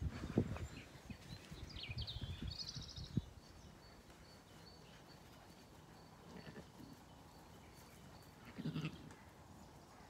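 Close rubbing and bumping against the microphone for the first few seconds as a tabby cat presses its fur against it, then a Zwartbles lamb bleats once, briefly, near the end.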